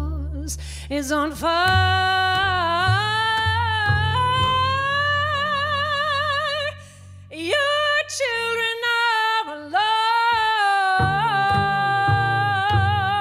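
Female jazz vocalist singing long held notes with vibrato over upright bass and piano. The line breaks off briefly about halfway, then a new phrase swoops up into another long sustained note.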